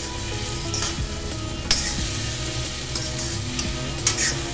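Soya chunks in masala sizzling as they fry in an iron kadhai, with a metal spatula scraping and clacking against the pan in a few sharp strokes, the loudest a little under two seconds in and near the end.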